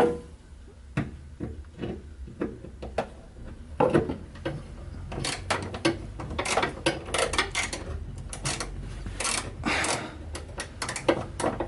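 Hands working a part into place: a run of clicks, knocks and scrapes, a few scattered at first, then coming thick and fast through the second half.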